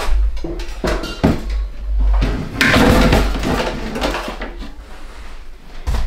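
Kitchen items (a lidded canister and a toaster) being set down and shifted about on a shelf: a few separate knocks in the first second or so, a longer clatter about three seconds in, and another knock near the end.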